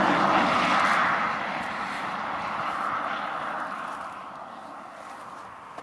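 A passing vehicle's noise, loudest at the start and fading steadily away over several seconds.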